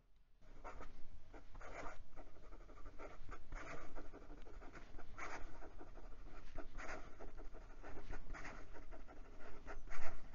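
Wing Sung 628 fountain pen's fine 14k gold nib scratching across notebook paper in fast cursive, a quick run of irregular pen strokes that starts about half a second in.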